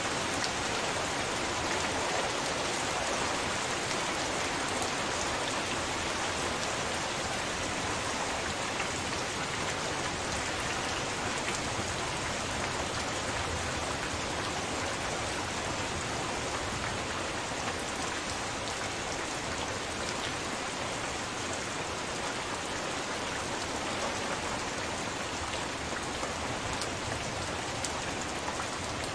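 Heavy rain falling steadily: a dense, even hiss of rain with many small drop impacts.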